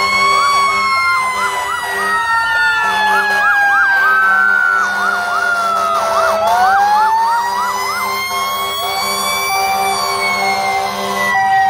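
Fire engine sirens sounding together as the trucks pass. One siren wails slowly, falling in pitch for about six seconds and then rising again, while another yelps in fast repeated chirps over it.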